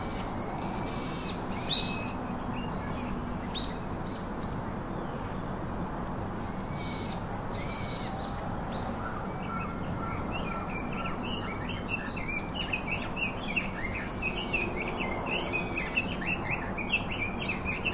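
Birds calling: short arched whistled calls repeat through the first half, then from about halfway a dense run of quick chirping sets in, over steady background noise.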